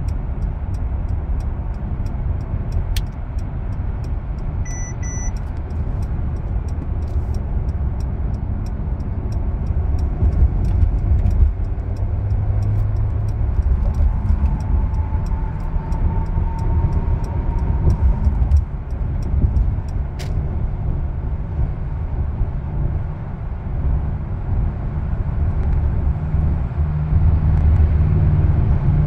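Steady road and engine noise of a car at freeway speed, heard inside the cabin as a continuous low rumble. A brief double beep sounds about five seconds in.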